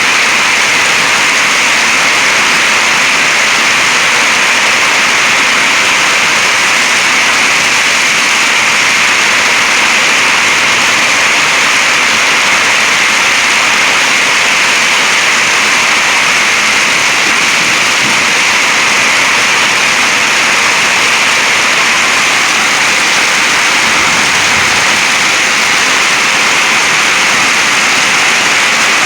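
Heavy thunderstorm rain pouring down, a loud, steady, even hiss.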